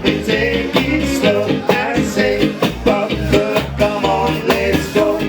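Live acoustic ska band playing, with a steady rhythmic beat.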